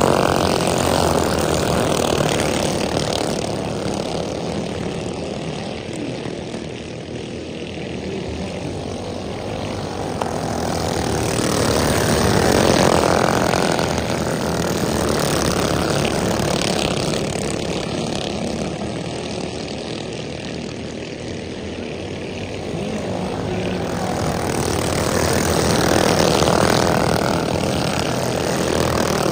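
A pack of racing go-kart engines, the sound swelling as the karts pass close about every thirteen seconds and fading as they go round the far side.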